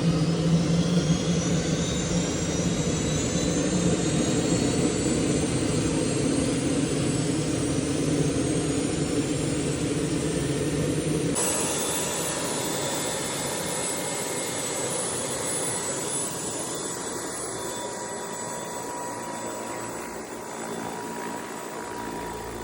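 Helicopter engine starting after 20 years unused: a whine climbs steadily in pitch as it spools up. About eleven seconds in the sound changes abruptly, then settles into a steady whine that slowly grows quieter.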